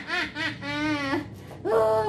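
A woman's voice laughing in quick rising-and-falling bursts, then holding one long note with a wavering pitch; a new held vocal sound begins near the end. This is the puppeteer voicing the baker puppet.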